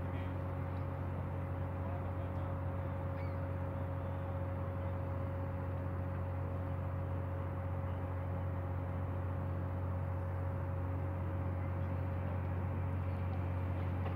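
Steady low engine drone with a constant hum over it, from the fireboat William Lyon Mackenzie's engines running as it holds position on the water. A few faint bird chirps come through.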